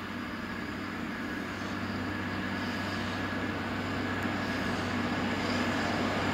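SN84 diesel multiple unit pulling away, its diesel engine running with a steady hum that grows slowly louder.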